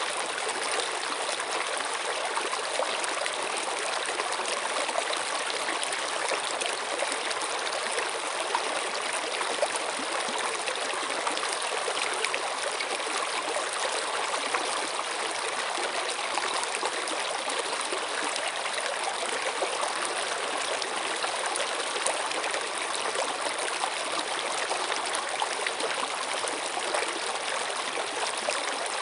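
Steady stream of water running and trickling, an even unbroken rush with no change.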